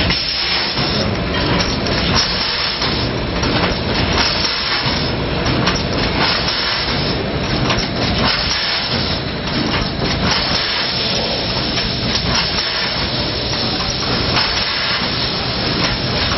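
Shampoo pouch filling and packing machine running: a steady mechanical clatter with repeated clicks and knocks, and some hissing.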